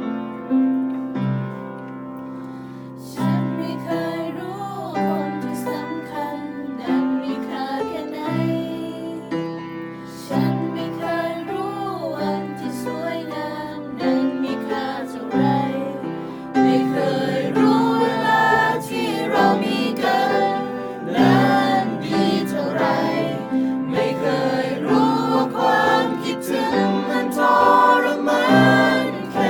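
Mixed choir singing in harmony to piano accompaniment. The voices come in about three seconds in and grow fuller and louder about halfway through.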